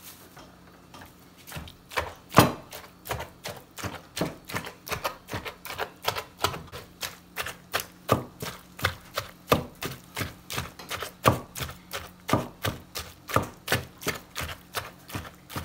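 Knife chopping on a cutting board in a steady run of strokes, about three a second, starting a second or two in.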